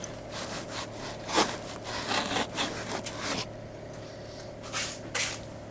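Wooden ammo crate being handled: irregular scraping and rubbing of wood on wood, in a run of strokes for the first three seconds or so and a few more near the end.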